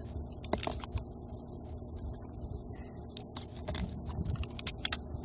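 Small clicks and knocks as a plastic sealant cartridge is picked up and handled, then a quick run of sharp snicks about three to five seconds in as a utility knife cuts through the plastic nozzle tip.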